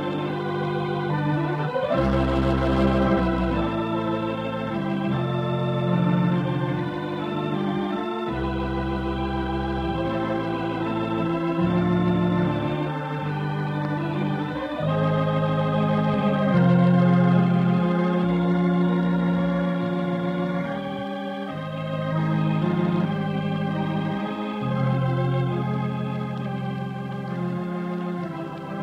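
Organ playing the program's closing theme: sustained full chords over deep bass notes that change every second or two, with a brighter accented chord about two seconds in.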